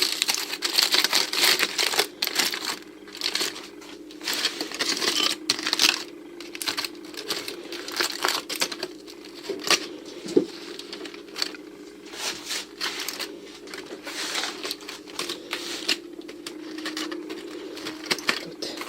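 Aluminium foil and baking paper crinkling and rustling in irregular bursts as they are peeled open.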